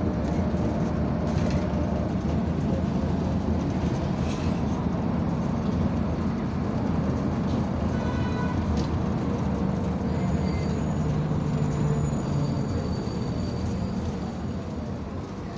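Inside a moving MAZ-203 city bus: a steady low engine drone and road rumble, with rattles from the body. A short high tone sounds about halfway, and the noise eases a little near the end.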